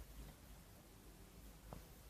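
Near silence: faint room tone, with one small click a little past the middle.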